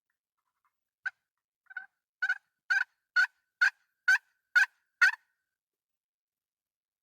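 A series of about nine turkey yelps, roughly two a second, each note a short sharp yelp, the series growing louder toward the end.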